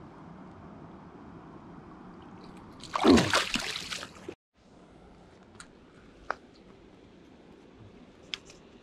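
Water running steadily at a spillway, with one loud splash about three seconds in. The sound then drops out briefly and returns quieter, with a few faint ticks.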